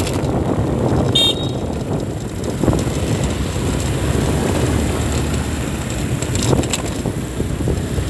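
Town street traffic: motor vehicles running past with a steady low rumble, and a short horn toot about a second in.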